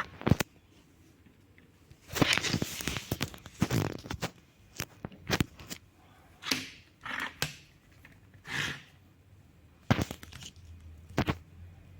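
Handling noises from unpacking a fan: a stretch of rustling packaging, a few shorter rustles, and scattered sharp clicks and knocks of parts being handled.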